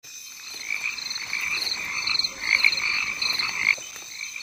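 Frogs calling in rapid pulsed trills, several overlapping, over a steady high whine; the trills stop abruptly near the end.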